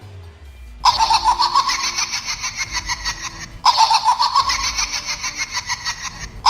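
High-pitched, creepy cackling laugh in two long runs of rapid pulses, with a third starting right at the end.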